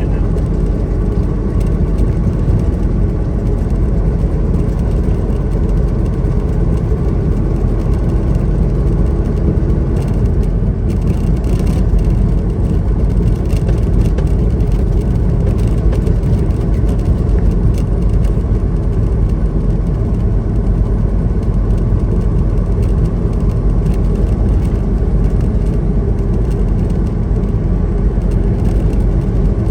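Semi-truck driving at highway speed: a steady, loud drone of engine and road noise.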